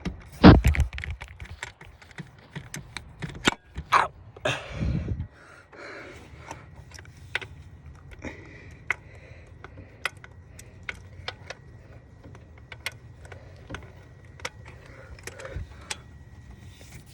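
Metal hand tools clicking and clinking irregularly as a spark plug socket, extension and wrench are worked on the engine, with a few louder knocks in the first five seconds.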